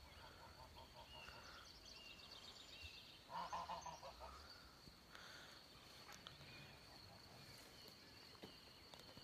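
Domestic geese honking faintly, a few short calls with the loudest about three and a half seconds in.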